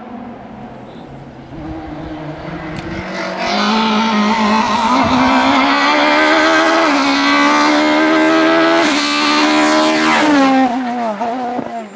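Kit Car rally car's high-revving engine approaching at full throttle and growing louder, climbing in pitch through a couple of gear changes. The pitch drops sharply as it passes by, about two seconds before the end.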